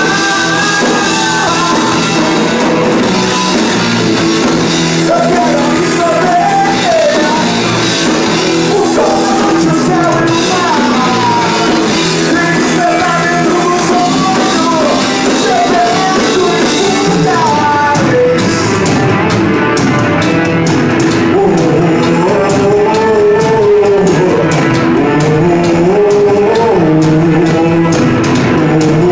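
Rock band playing live: a male singer over electric guitars, bass and drums. The drum and cymbal hits stand out more in the second half.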